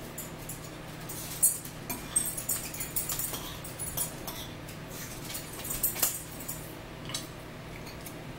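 Close-up mouth sounds of eating: chewing and lip-smacking in a string of short, wet clicks, with light clicks of a fork against a bowl, over a steady low hum.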